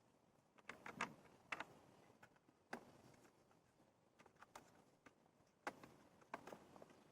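Faint, scattered clicks and taps from pool filter parts being handled during assembly, with near silence in between.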